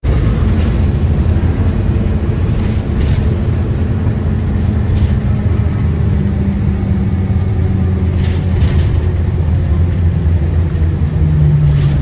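Twin-engine jet airliner climbing out after takeoff: a loud, deep engine rumble with a low hum that slowly drops in pitch.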